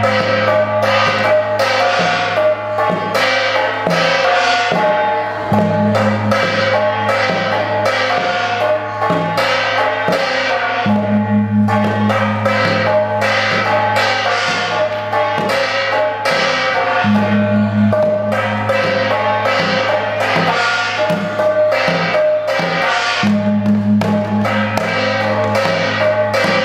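Traditional Zomi gong-and-drum ensemble playing: several hand-held gongs are struck in a steady repeating rhythm over a beaten drum. The gongs ring on between strokes, with deep humming tones that swell in and drop out in stretches.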